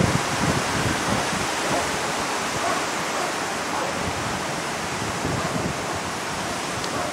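Wind buffeting the microphone: a steady rushing noise with gusty low thumps.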